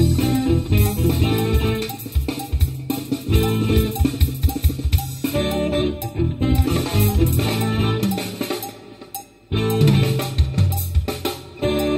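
Live funk band playing: electric guitar and drum kit over bass. The band drops out briefly about nine seconds in, then comes back in together.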